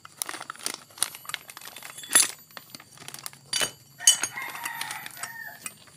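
Thin plastic packaging bag crinkling and crackling with sharp snaps as a new clutch housing is turned over inside it by hand. A chicken clucks briefly about four seconds in.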